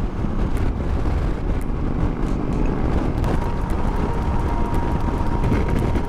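Wind rushing over a helmet-mounted camera's microphone at highway speed, over the steady drone of a Honda Africa Twin's parallel-twin engine and road noise. A faint steady whine joins in about three seconds in.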